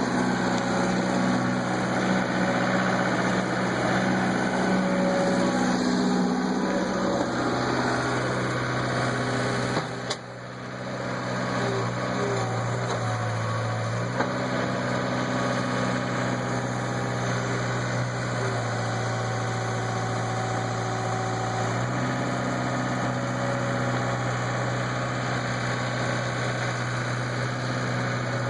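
Skid steer engine running steadily under work, its pitch stepping down and back up several times as the load changes, with a brief drop in level about ten seconds in.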